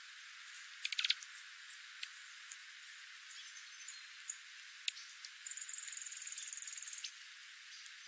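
Small songbirds feeding on seed on gravel, dark-eyed juncos among them: scattered sharp high ticks, a quick cluster of clicks about a second in, then a high, rapid, evenly pulsed bird trill lasting about a second and a half.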